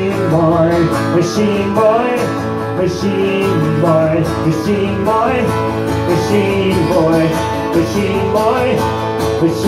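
Live solo song: a cutaway acoustic guitar strummed steadily, with singing over it.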